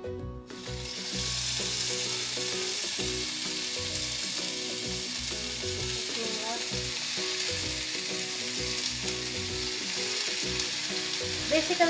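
Chicken and vegetable skewers sizzling in hot oil in a nonstick pan as they are laid in one by one. The sizzle starts about a second in and holds steady.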